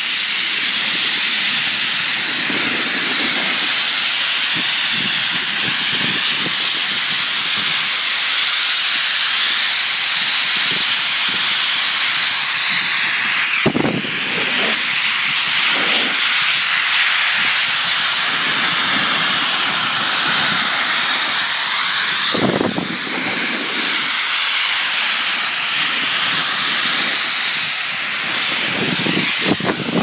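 Snowmaking guns running: a loud, steady jet-like hiss of compressed air and water, with a few brief low thumps in the middle.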